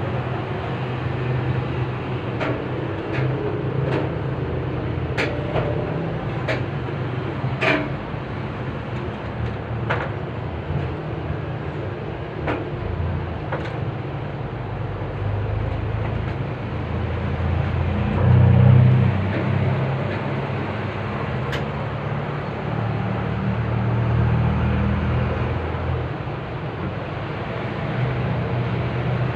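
Metal clicks and knocks from hands working on an air-conditioner outdoor unit's casing, several in the first half, over a steady low mechanical rumble that swells around the middle and fades again.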